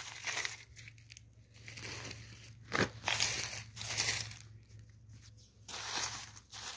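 Dry, papery onion skins rustling and crinkling in irregular bursts as onions are rummaged through in a heap of loose skins, with one sharper crackle about three seconds in.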